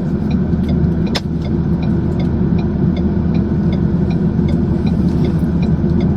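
Steady low road and engine rumble inside a moving car, with a turn signal ticking evenly about three times a second. A single sharp click comes about a second in.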